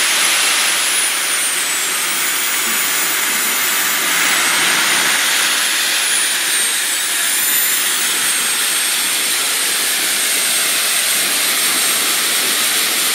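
Model jet turbine engines running with a steady hiss and a thin high whine. The whine's pitch rises and falls twice, then holds steady.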